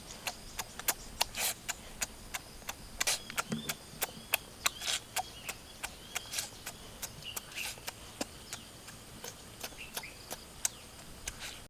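An irregular run of sharp clicks and crackles, several a second, with faint high chirps in the middle.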